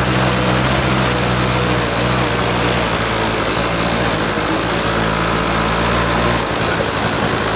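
Small engine of an off-road vehicle running steadily while riding, with wind rushing on the microphone; the engine note shifts about six and a half seconds in.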